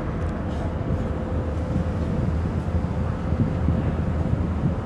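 Car ferry's engines and machinery running with a steady low rumble and a constant mid-pitched hum.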